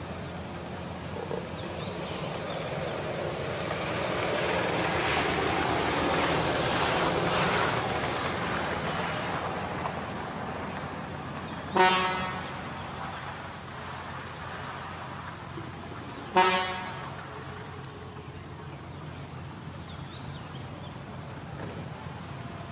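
A motor vehicle passing, its noise swelling and fading over several seconds, then two short horn toots about four and a half seconds apart.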